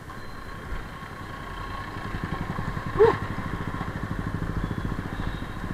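Motorcycle engine running at low speed with a steady, even exhaust pulse, and a short loud chirp about three seconds in.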